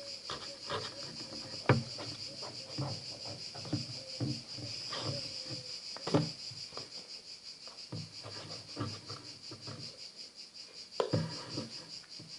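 Hands opening a box and handling its packaging: scattered clicks, taps and rustles, a few sharper knocks among them, over a steady high-pitched whine.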